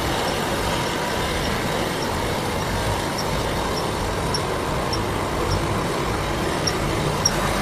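Steady running noise of the sawdust carbonization line's machinery, with faint regular ticking about every half second from partway through.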